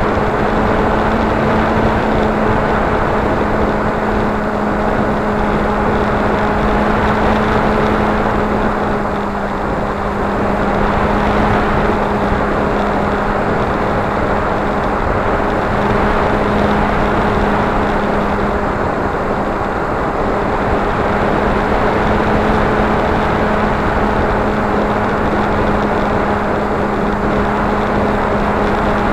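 RC flying wing's motor and propeller in flight, picked up by the onboard camera: a steady hum over a rushing noise, easing slightly about nine seconds in.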